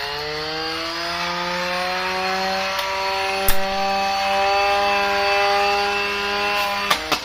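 Weapon motor of a 1 lb antweight horizontal-spinner combat robot whining as the spinning blade winds up in pitch, then holds a steady spin and sags slightly near the end. A sharp knock comes about three and a half seconds in, and a few quick knocks near the end as the spinning blade strikes something.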